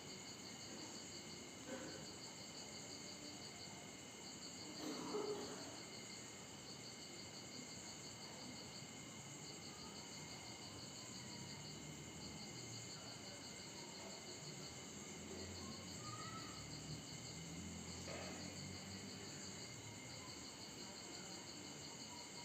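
Insects chirping steadily in a faint, continuous pulsing trill. A brief, slightly louder sound comes about five seconds in.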